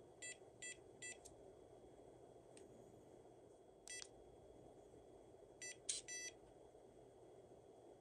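Electronic beeps from a WELOCK SECBN51 smart lock's fingerprint knob as its wake-up button is pressed and a finger is tapped on the sensor to register an admin fingerprint. Three quick short beeps come near the start, a single beep about four seconds in, and a cluster of three around six seconds, over faint room noise.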